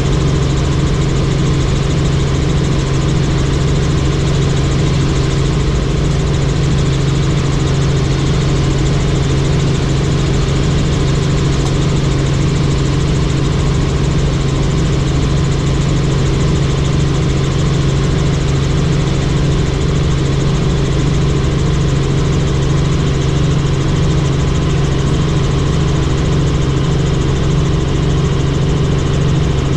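Helicopter in flight: a steady, unbroken drone of engine and rotor with a strong low hum and a hiss over it.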